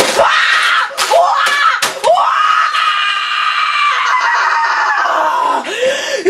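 A teenage boy screaming in rage: a few sharp bangs and short yells in the first two seconds, then one long, high-pitched, held shriek that sinks in pitch and breaks off near the end.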